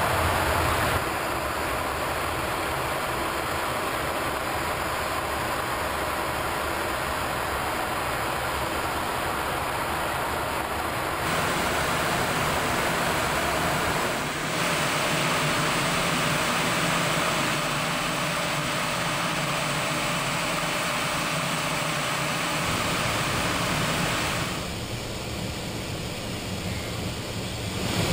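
Cockpit noise of a Learjet 45XR in descent: a steady rush of airflow with the hum of its jet engines. The tone and level shift abruptly several times.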